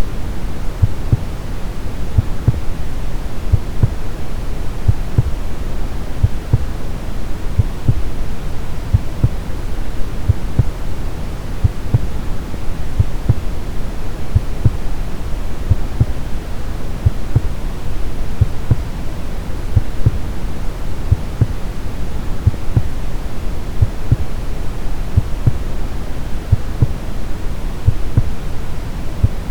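Brown noise, a steady deep hiss weighted to the low end, with a heartbeat sound beating evenly through it.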